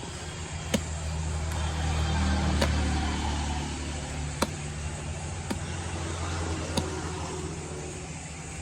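A low engine rumble, swelling around two to three seconds in and then easing, with five sharp knocks spaced irregularly through it.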